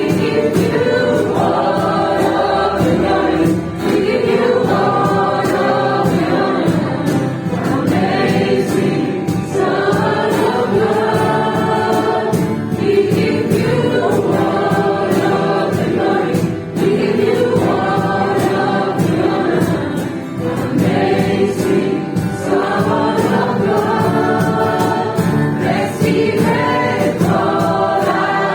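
Church worship singing: many voices together singing a Christian worship song in phrases of a few seconds, with short breaths between lines.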